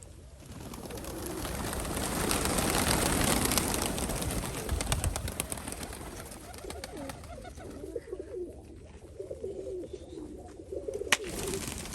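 Domestic pigeons cooing, mostly in the second half. Early on, a broad rushing sound swells and then fades away. A single sharp click comes near the end.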